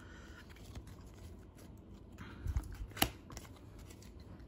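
Faint handling of a stack of Panini Prizm baseball cards, cards sliding and rubbing against one another as they are moved through the stack. A soft knock comes about two and a half seconds in, and a sharp click about half a second later is the loudest sound.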